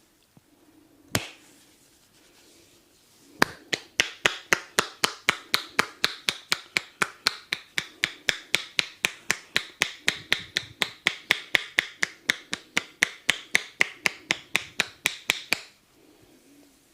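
A barber's hands giving a fast percussive head massage: a single sharp click, then from about three and a half seconds in an even run of sharp clicks, about four to five a second, that stops shortly before the end.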